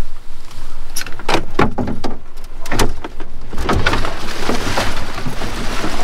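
Knocks and thumps on the hull of a small Gheenoe boat as a man shifts his weight across it. About three and a half seconds in, heavy splashing follows as he tips over the side and a leg plunges into the water.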